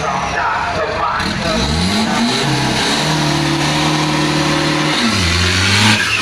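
Isuzu direct-injection diesel pickup engine under hard acceleration. The revs climb steeply about two seconds in and hold a steady high note, then the pitch drops about five seconds in.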